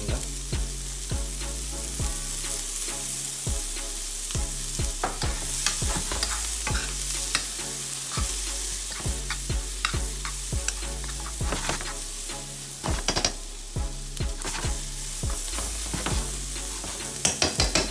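Curried sliced onions and green peppers sizzling in coconut oil in a nonstick frying pan, stirred with a metal spoon that clicks and scrapes irregularly against the pan.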